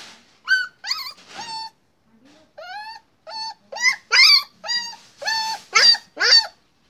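Puppy giving a run of about a dozen short, high-pitched yips and whiny barks, with a brief pause about two seconds in.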